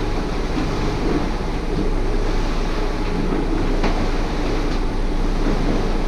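Steady drone of a sailing catamaran's diesel engine running under way, with a continuous hum and rushing noise.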